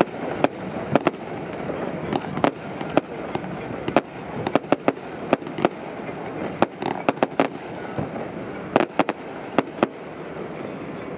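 Fireworks display: dozens of sharp bangs and cracks in quick, irregular clusters over a steady background noise.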